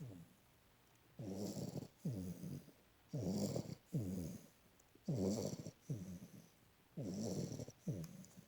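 A dog snoring in its sleep: four snores about two seconds apart, each a longer snore followed at once by a shorter one.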